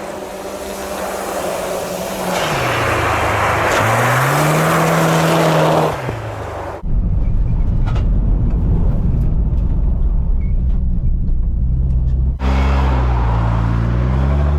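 Car engine revving, its pitch rising and falling, with a loud rushing noise from about two to six seconds in. About seven seconds in the sound turns to a deep, muffled rumble for some five seconds. Then the engine revving comes back.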